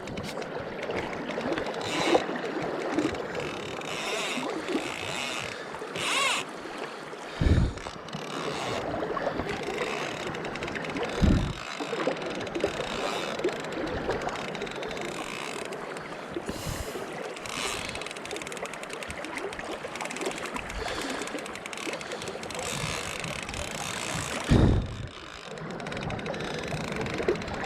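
Steady rush of river water, with a few short low thumps over it.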